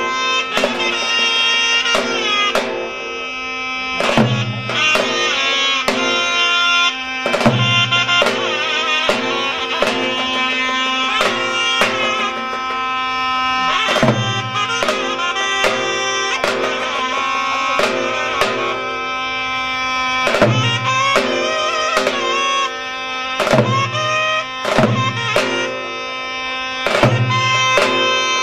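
Davul and zurna playing a slow zeybek. The zurna holds a reedy, sustained melody over a davul whose heavy bass strokes fall about every two seconds, with lighter strokes between.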